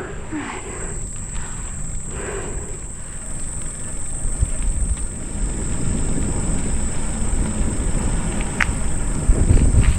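Steady high-pitched buzz of insects, with a low rumbling noise on the microphone growing louder from about four seconds in.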